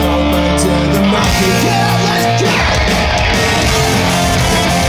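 Live pop-punk band playing loud with electric guitars, bass and drums through a concert PA, heard from the crowd.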